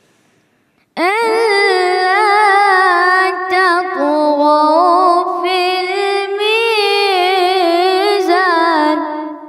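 A high voice chanting Quran recitation in the melodic mujawwad style. About a second in, it begins one long melismatic phrase that wavers through many ornaments, with a brief dip around four seconds in.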